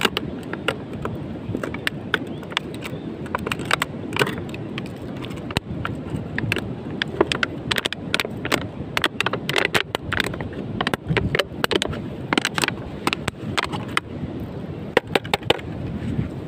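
Empty plastic water bottle crackling and crinkling in irregular clusters of sharp snaps as it is squeezed and twisted in the hands, over a steady low rush of wind.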